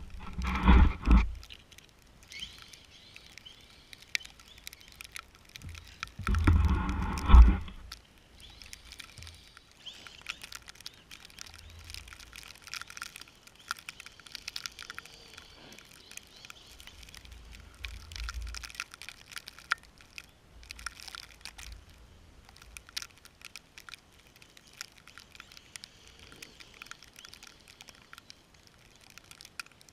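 Traxxas Summit RC truck driving through snow: a steady fine crackle and patter of snow under the tyres, with two loud low rumbles in the first eight seconds.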